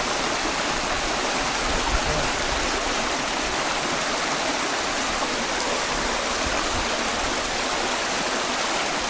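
Water rushing steadily over rocks in a shallow stream rapid, an even, unbroken rush of noise.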